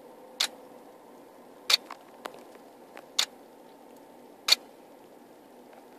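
A camera's lightning trigger firing the shutter as it senses lightning flashes: four sharp clicks about a second and a half apart, with a few fainter clicks between them, over a steady low hum.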